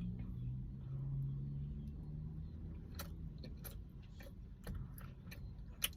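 Someone chewing a cookie with a few short, sharp mouth clicks and crunches in the second half, over a low steady hum.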